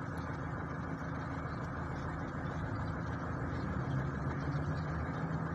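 Steady low mechanical hum of an engine running at idle, unchanging throughout.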